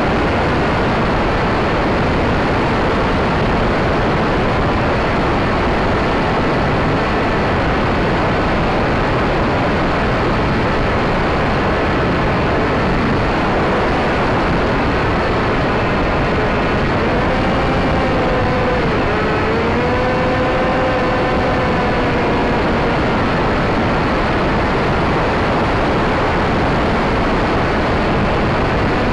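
Steady rush of airflow and propeller noise from an electric RC plane in flight, heard from a camera on board. A faint motor whine sits under it, rising and falling in pitch with the throttle around the middle.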